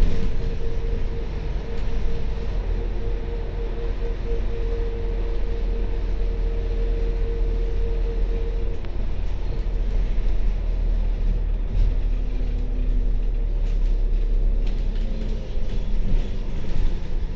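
Double-decker bus in motion, heard from the upper deck: a steady low engine and road rumble. A steady hum sits over it and fades out about nine seconds in.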